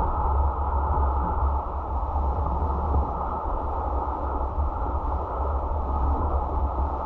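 Steady road and wind noise of a moving car as picked up by a dashcam: a deep rumble under a muffled hiss.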